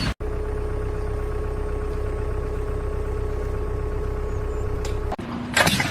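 An engine running steadily at constant speed, a low rumble with a held hum. It cuts in abruptly just after the start and cuts off abruptly about five seconds in.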